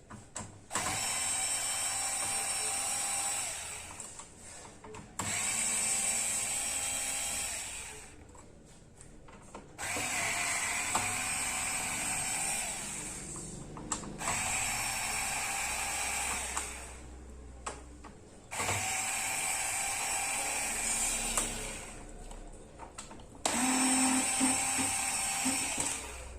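A small handheld power drill or driver running in six bursts of about three seconds each, each starting abruptly with a steady whine and tailing off.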